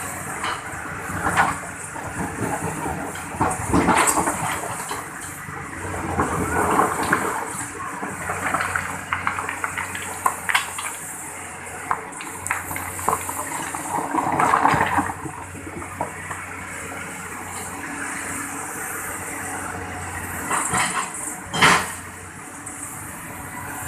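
Excavator working: its engine running steadily underneath repeated rushing swells of noise and a few sharp knocks, one of the loudest about four seconds in and another near the end.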